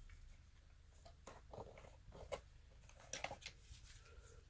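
Faint, scattered clicks and scrapes of an insulated electrical wire being bent by hand inside a metal disconnect box.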